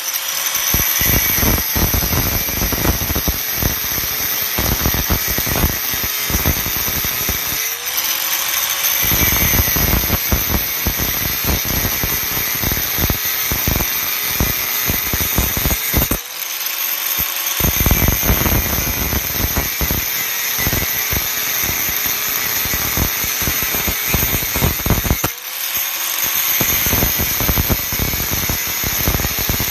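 Angle grinder with a thin 107 × 1.2 mm abrasive cutting wheel cutting through a 16 mm solid stainless steel rod: a loud, continuous grinding of disc on steel. About every eight seconds the disc eases off the cut for a moment and the motor's whine rises as it speeds up unloaded, then the grinding resumes.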